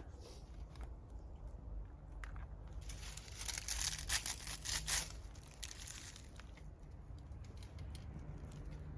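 Dry crackling and crunching of campfire kindling, with scattered sharp clicks and a dense patch of crackle lasting about three seconds midway.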